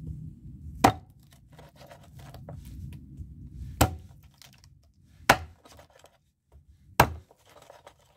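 A meat cleaver chopping a village chicken into pieces: four heavy, single chops at uneven intervals, with small handling clicks between them.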